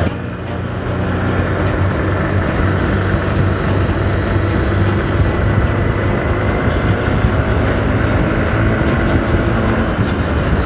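A 150cc single-cylinder motorcycle engine running steadily at road speed, with wind and road noise on the microphone. The sound drops briefly at the very start and picks up again within about a second.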